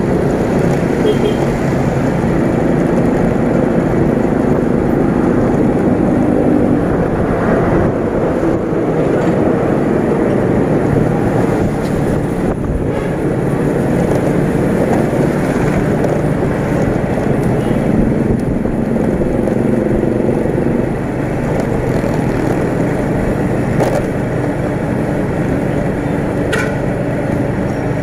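Motorcycle engine running while riding in traffic, with steady wind rush on the microphone and other vehicles passing.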